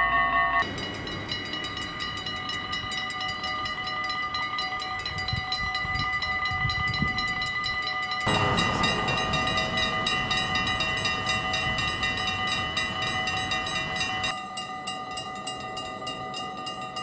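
Dutch level-crossing warning bells ringing in fast, even strokes while the barriers rise. Clips from different crossings are spliced together, so the bell tone changes abruptly about a second in, again around eight seconds, and once more near fourteen seconds.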